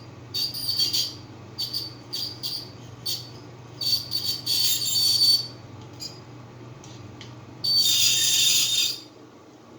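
Hair clamp squeaking as it is worked: a run of short, high squeaks, then one longer, louder squeak of about a second near the end.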